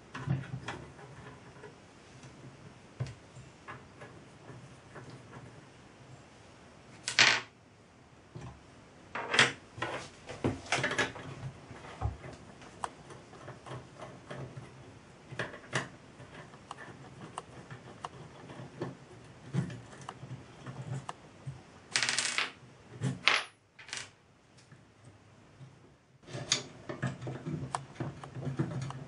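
Scattered clicks and clinks of small metal parts and fittings being handled as a model steam traction engine is taken apart by hand, its cover and brass cylinder coming off, with a few louder knocks along the way.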